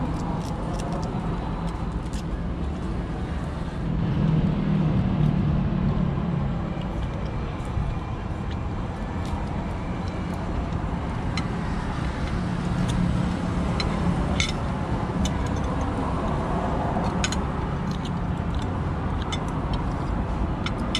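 A steady low rumble of open-air background noise, such as traffic or wind, swelling twice. Over it come a few scattered light clicks of utensils and shells against plates as the meal is eaten.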